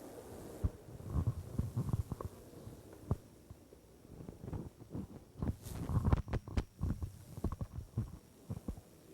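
Microphone handling noise: irregular low thumps, knocks and rustles as a PA microphone is moved and handled, busiest about a second in and again after the middle.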